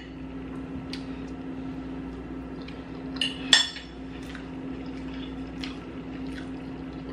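Eating sounds: a handful of light clicks and taps of a fork on a dish, with a louder one about three and a half seconds in, over a steady low hum.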